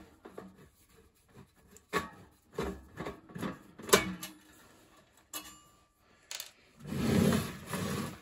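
Screwdriver working the self-tapping screws out of a Dualit two-slice toaster's stainless steel casing: scattered metallic clicks and scrapes, the sharpest about four seconds in. Near the end, a scraping rumble of about a second as the metal toaster is turned over on the bench.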